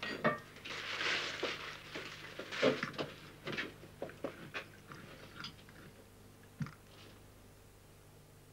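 Tea being poured into a cup, a hiss lasting a second or two, then soft clicks of crockery and cutlery and eating at a table, thinning out and fading.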